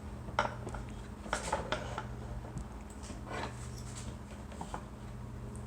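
Scattered light clicks, knocks and clatters of things being handled and moved, over a steady low hum.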